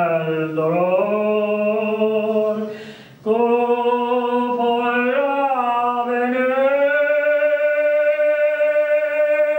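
A man singing an Italian song solo and unaccompanied, in long drawn-out notes. He takes a breath about three seconds in, then holds one long steady note through the second half.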